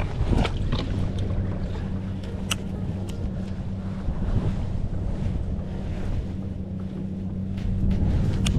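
Wind buffeting the microphone over choppy water lapping at a kayak, with a steady low hum underneath and a few light ticks.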